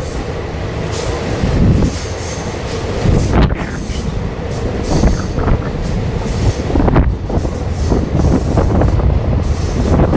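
A moving vehicle's steady rumble with irregular rattles and clanks, like a train running on its rails.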